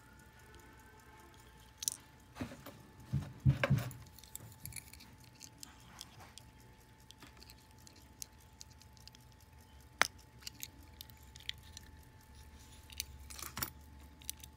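Small metal clicks and taps as a gold-filled hunter-case pocket watch is handled, with a few louder knocks around three seconds in and one sharp click about ten seconds in.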